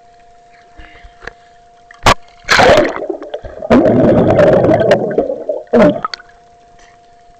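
Water splashing and gurgling over a small waterproof camera as it is dunked under the lake surface: a sharp knock about two seconds in, then a few seconds of loud rushing, bubbling water.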